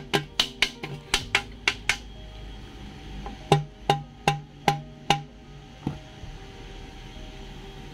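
Background music: a steady pitched backing under a run of sharp wood-block-like percussive taps, clustered in the first two seconds and again from about three to five seconds in.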